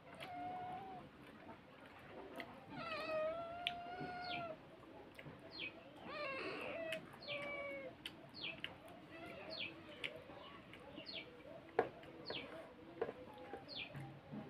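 A cat meowing three times: near the start, a long drawn-out meow about three seconds in, and another about six seconds in. Birds make short, high, falling chirps over and over underneath.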